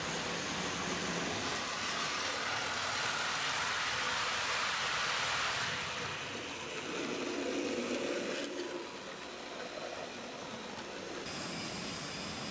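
H0-scale model trains running on a large layout: a steady whirr of small motors and wheels on track, with a louder hum for a second or two about seven seconds in as a model ICE passes close by.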